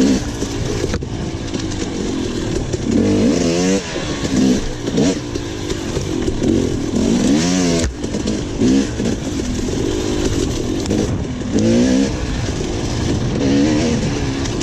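Enduro dirt bike engine under hard throttle, the revs climbing and dropping over and over as the rider works the throttle and shifts, with brief sharp cuts about a second and about eight seconds in. A steady rush of wind and terrain noise runs underneath.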